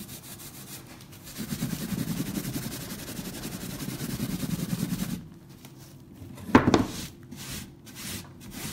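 A hand rubbing firmly and fast over flock (velvet) powder glued onto a wooden box lid, scrubbing the fibres into the glue so that any loose powder comes away. The rubbing is loudest in the first half and then eases off, and a couple of sharp knocks come about two-thirds of the way through.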